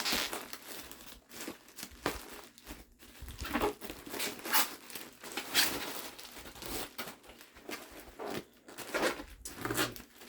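Bubble wrap and packing tape crinkling and tearing as a package is unwrapped by hand, in short irregular bursts of rustling.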